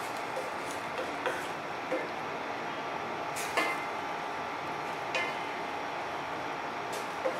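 Squid cooking in a stainless steel pan with a steady hiss, while a wooden spatula stirs it, knocking and scraping against the pan about six times, loudest about three and a half seconds in.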